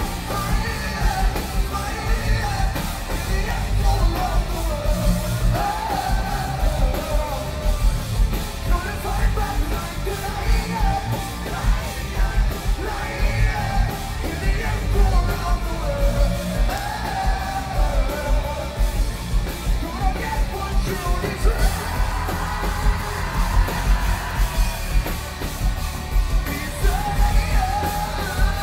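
Live band playing loud, with electric guitars and fast, pounding drums, the singer shouting and yelling into the microphone over it.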